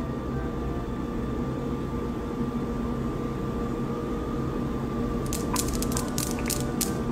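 Steady background hum, then from about five seconds in a run of sharp, irregular clicks: the steel balls of a Newton's cradle desk toy clacking together as a cat paws at them.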